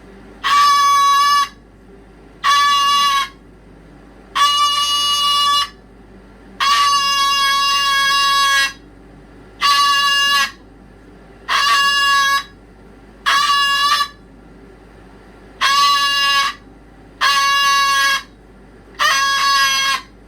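A pet's loud, repeated calls: about ten flat-pitched cries in a row, each lasting about a second, with short pauses between them.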